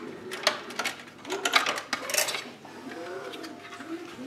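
Plastic parts of a stripped-down Krups espresso machine clicking and knocking as its upper plastic assembly is worked loose and lifted out, busiest in the first two and a half seconds.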